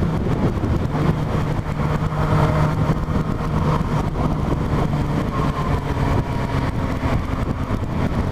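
Yamaha FZ8 motorcycle's inline-four engine running at a steady, even speed.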